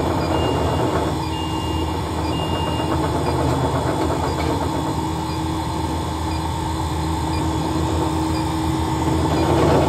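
Steady hum of a custard machine's refrigeration unit running. Three short, faint high beeps sound in the first three seconds.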